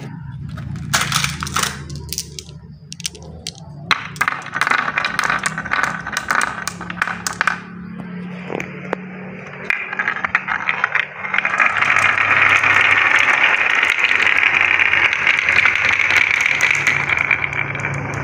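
Glass marbles rolling down a wavy groove cut in a wooden slope board, clicking against the wood and each other. Scattered single clicks at first, then from about ten seconds in a dense, continuous rattle as many marbles run down together.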